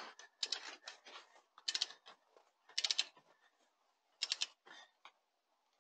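Click-type torque wrench ratcheting on wheel nuts: five or so short bursts of quick, sharp clicks with pauses between them, as the nuts are brought up to torque.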